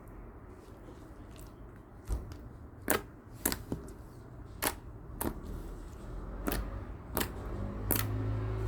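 Slime being worked by hand, giving about seven sharp, irregular clicks and pops from trapped air, starting about three seconds in, over a low steady hum.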